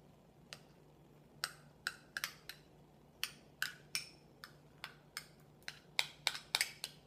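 Spoon clicking and scraping against a small plastic tub as soft cheese is scooped out: a string of light, irregular clicks, with a faint steady low hum underneath.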